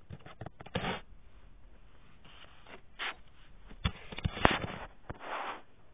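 Handling noise: rubbing and scraping, with a few sharp clicks. The loudest click comes about four and a half seconds in.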